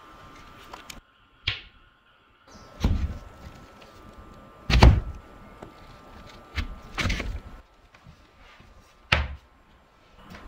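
A series of about five separate knocks and thuds a second or two apart, the loudest about halfway through, like objects or doors being set down or shut.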